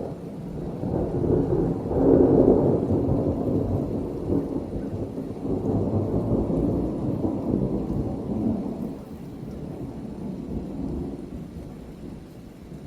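A long rolling thunder rumble over steady rain. It swells to its loudest about two seconds in and fades gradually over the following ten seconds.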